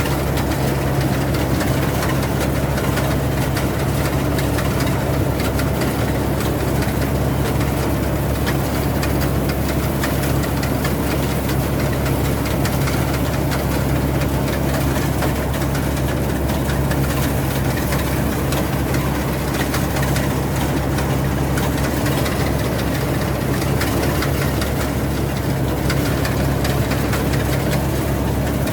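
Rice combine harvester's engine running steadily at a constant pitch, a continuous low hum with machinery noise over it.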